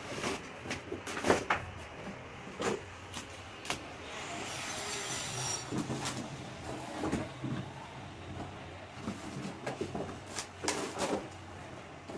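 Cardboard packaging being handled: an inner box slid out of its printed outer carton and its lid flaps opened, with scattered knocks and rustles and a longer rubbing slide about halfway through.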